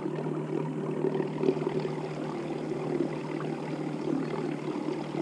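A 35-lb-thrust electric trolling motor running on its high setting, a steady hum with water noise, pushing a kayak at its top speed of about 3 mph.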